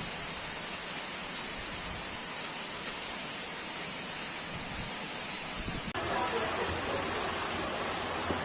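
Steady downpour of heavy rain, a continuous rushing hiss. About six seconds in it cuts to a different, slightly louder storm recording with a denser patter.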